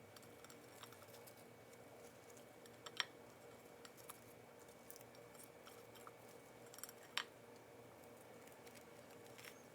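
Near silence with faint handling sounds of a sandwich being put together, and two sharp light clicks about three and seven seconds in.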